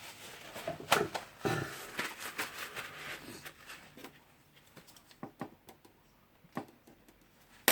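Light clicks and taps of tools and metal parts being handled inside the opened gear housing of a rotary hammer drill. They are busier in the first seconds and sparser after, with one sharp click at the end.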